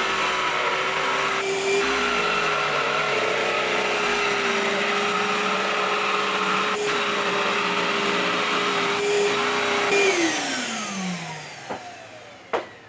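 Wet-dry shop vacuum running steadily with a cordless jigsaw cutting a thick wooden baffle board through its hose. About ten seconds in the motors spin down, falling in pitch and fading, and two sharp clicks follow. The tool's small 1.5 Ah battery is running out.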